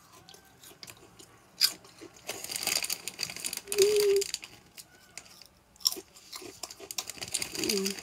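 A person chewing a crunchy snack close to the microphone, in two spells of loud crackly crunching with a few sharp clicks, and a couple of short hums.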